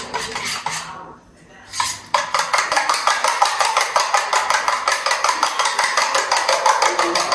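Metal fork beating eggs and vanilla in a small ceramic bowl: a few scattered clinks, a short pause, then from about two seconds in a fast, even clinking at about six strokes a second.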